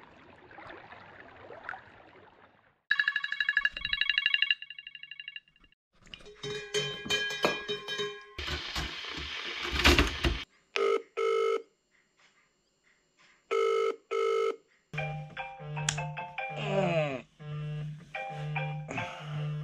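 A soft rushing noise, then from about three seconds in a rapidly pulsing electronic ringing tone for about two and a half seconds. After that come short tonal blips and a burst of hiss, giving way to background music with a steady beat from about halfway through.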